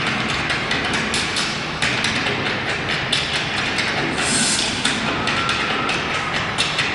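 Noisy recording of a stage show: a loud, dense wash of noise full of rapid percussive knocks and clicks, with faint music underneath.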